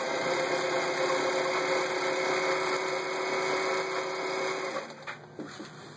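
Elna TSP 72C electric sewing machine running steadily at speed, stitching one of its built-in patterns through fabric. It stops about five seconds in, leaving a few light clicks and taps.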